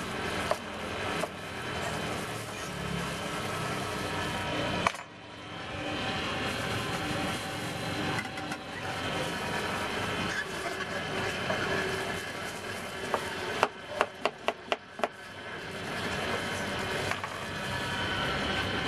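Cleaver knocking on a wooden cutting board as leafy greens and stalks are chopped, with a quick run of about six chops about two-thirds of the way through. A steady background hum of a street stall runs underneath.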